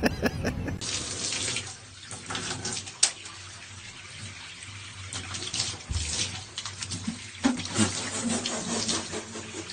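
Bathtub tap running a thin stream of water into the tub, splashing unevenly. A single sharp click about three seconds in.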